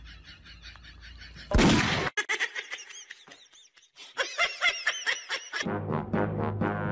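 Comedy sound effects: a sudden loud burst of noise about a second and a half in, followed by a quick run of laugh-like sounds. Near the end, a brass-led music track starts.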